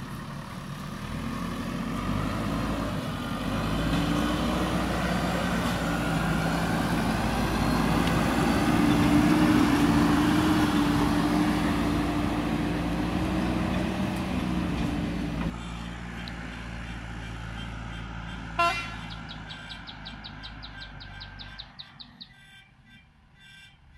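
JCB backhoe loader's diesel engine running close by under load, revving up and holding high around the middle. After about 15 s the sound drops to a fainter engine, with one sharp click and then a quick run of ticks.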